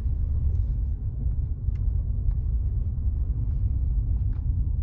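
Steady low rumble of a car rolling slowly along a gravel track, heard from inside the cabin, with a few faint clicks.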